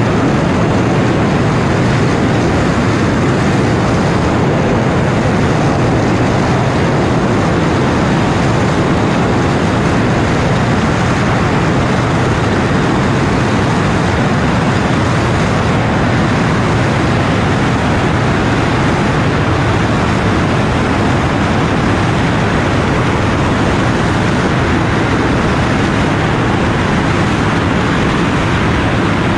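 Tupolev Tu-160's four NK-32 turbofan jet engines running, picked up by a camera on the aircraft's tail as a loud, steady rush of noise that does not change.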